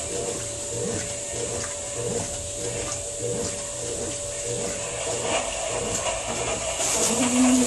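Small top-loading washing machine running, a steady motor hum under a regular churning rhythm about twice a second.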